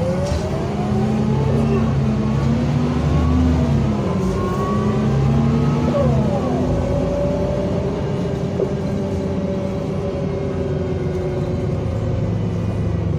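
Mercedes-Benz O345 city bus's diesel engine pulling away: its note rises in pitch, drops at a gear change about four seconds in, rises again, and then holds steady.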